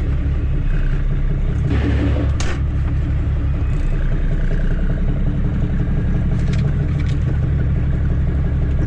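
Kenworth W900B's Caterpillar C13 diesel engine running steadily, heard from inside the cab. There is a short burst of hiss about two seconds in and a few light clicks.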